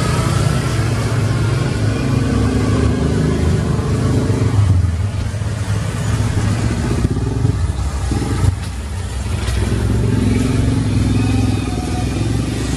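A motor engine running continuously with a deep rumble, its pitch shifting up and down, with a short knock about eight seconds in.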